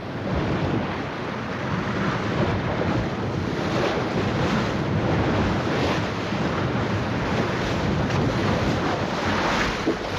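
Strong wind and rushing seawater at sea, with wind buffeting the microphone: a steady, loud rush that swells and eases now and then.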